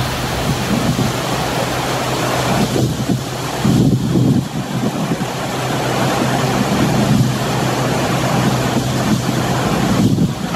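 New R255 subway work locomotive running toward the platform, a steady low hum under heavy wind noise on the microphone.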